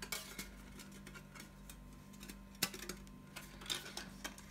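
Thin metal plates of a Trangia Triangle pot stand clicking lightly against each other as they are slotted together by hand, a few scattered ticks with the sharpest about two and a half seconds in, over a faint steady hum.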